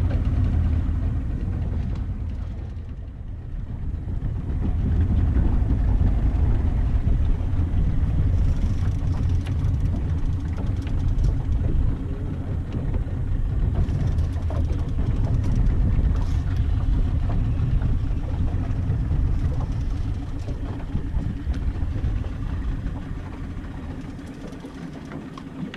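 Fishing boat's engine running, a steady low rumble that swells and eases, dipping briefly about three seconds in and quieter near the end.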